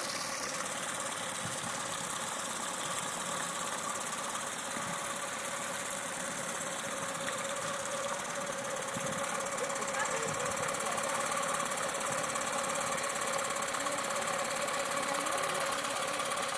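Yamabisi F15 15 hp four-stroke outboard engine, a Yamaha copy, running steadily on a test stand with its lower unit in a barrel of water and its cowling off.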